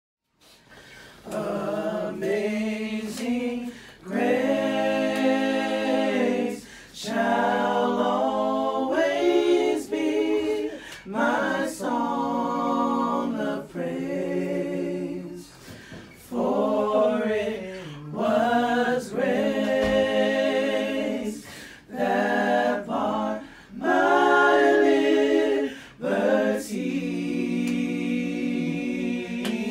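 A cappella singing by a group of voices, in held phrases of a few seconds with short breaks between them.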